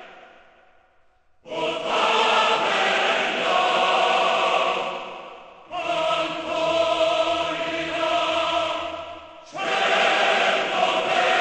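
Choral music: a choir chanting in three loud phrases, each beginning abruptly, after a brief near-silent pause at the start.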